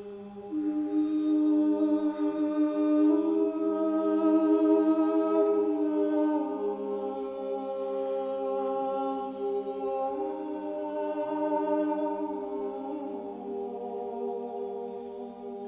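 Slow, sustained music: a steady drone of held tones with a wordless vocal line above it, moving slowly between long notes. The voice comes in about half a second in.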